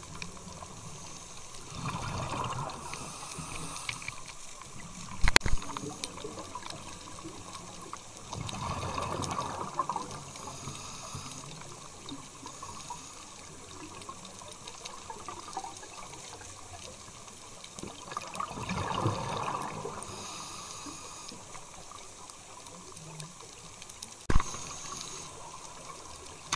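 Underwater, a scuba diver's exhaled bubbles from the regulator: three bursts of bubbling, each lasting a second or two, over a steady watery hiss. Two sharp knocks, the loudest sounds, come about five seconds in and near the end.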